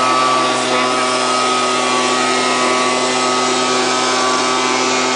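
Handheld gas leaf blower running at a steady speed, its engine note holding one pitch throughout.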